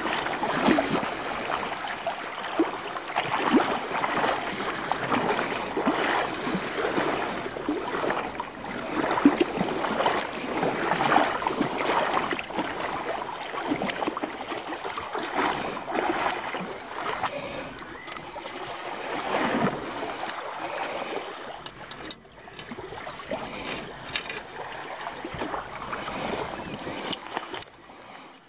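Shallow seawater sloshing and splashing in uneven surges as someone wades ashore, growing quieter over the last several seconds.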